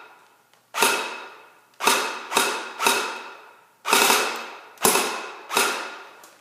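Battery-powered Echo-1 AK-47 airsoft rifle fitted with a suppressor, fired in seven short, unevenly spaced trigger pulls, each a sharp mechanical rattle that dies away quickly.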